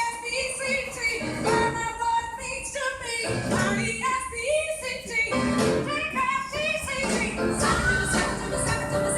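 Background music: a song with a singing voice over a percussion beat.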